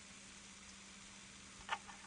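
Near silence: a faint steady hiss and low hum, with a couple of faint short clicks near the end.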